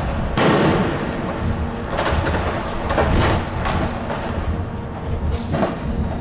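New Year's Eve firecrackers and fireworks going off around a tram, heard from inside the driver's cab: a string of bangs, the loudest about half a second and three seconds in, over the low running rumble of the tram.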